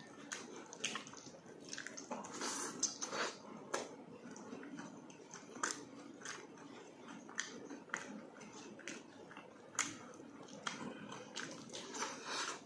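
Close-up eating sounds from a mouth chewing and smacking on stewed tuna jaw and rice eaten by hand, with many irregular short wet clicks. Fingers pick at the soft fish between bites.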